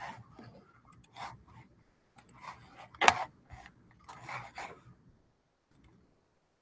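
Scattered rustling and taps from handling things at a desk, with one sharp click about three seconds in.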